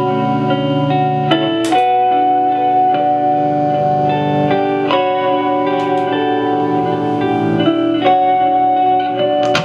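Ambient electric guitar loop from a Gibson LPJ, played through a Line 6 DL4 delay-looper and a Marshall amp with its spring reverb turned all the way up. Layered chords ring on steadily, the low notes shift every three seconds or so, and new notes are picked over the loop now and then.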